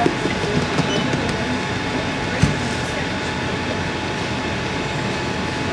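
Steady background noise of the shop's ventilation and refrigeration, with light handling of a plastic food cup: a few small clicks and one sharper knock about two and a half seconds in.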